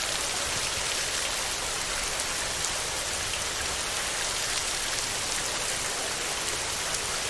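Steady heavy rain on a tin roof: a dense, even hiss of drops with occasional sharper drop ticks.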